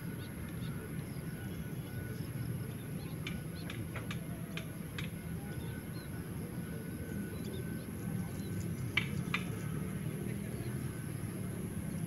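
Outdoor lakeside ambience: a steady low rumble and a faint steady high hiss, with scattered short bird chirps, including two sharper ones close together about nine seconds in.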